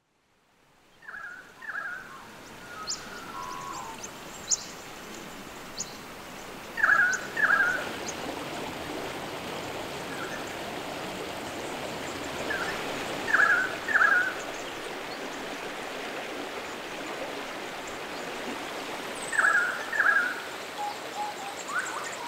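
A river running over rocky rapids with a steady rush, fading in near the start. Over it, a bird repeats a quick two-note call about every six seconds.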